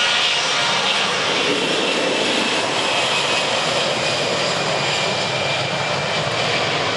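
Airbus A320-214(W) jet engines at takeoff thrust during the takeoff roll: a loud, steady jet rush with a high whine that eases slightly as the plane moves along the runway.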